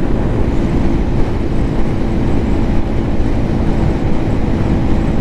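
Lifan KPM 200's single-cylinder engine running steadily at highway cruising speed, mixed with wind rushing over the helmet-mounted microphone.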